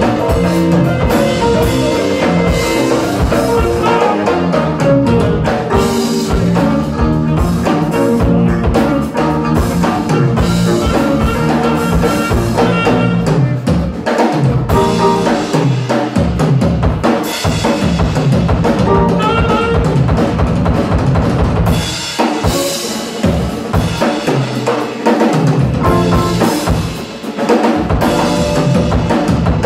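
Live band playing an instrumental jam: drum kit, electric bass and electric guitar, with the drums carrying the groove.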